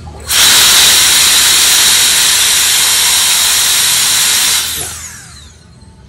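Gale Force S handheld mini jet fan, a high-speed turbo blower with a claimed 130,000 RPM motor, switched on at full power: a loud, high-pitched rush of air with a steady whine. After about four seconds it is switched off and the whine falls in pitch as the motor spins down.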